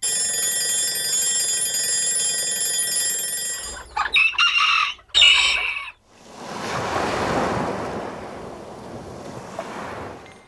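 A string of short sound effects. First a dense layer of many steady high tones, then two short loud calls about four and five seconds in, then a rushing noise that swells and slowly fades away.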